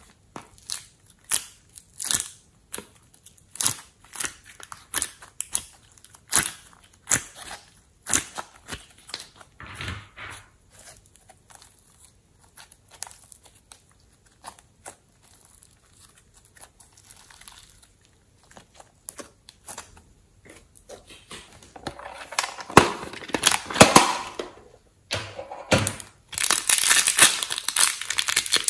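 Close-up handling of plastic slime containers and packaging: scattered sharp clicks and crackles, then thick crinkling of a clear plastic bag of foam clay being squeezed, loudest in the last few seconds.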